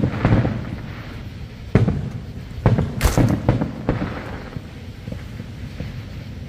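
Aerial fireworks shells bursting: a string of booms and sharp bangs, each trailing off in a low rumbling echo. The sharpest bang comes about three seconds in, and the bursts thin out toward the end.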